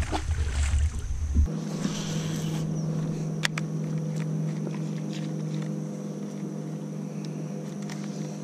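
A low rumble that cuts off about a second and a half in. After it, a bass boat's electric trolling motor hums steadily as the boat creeps along, with a few faint clicks.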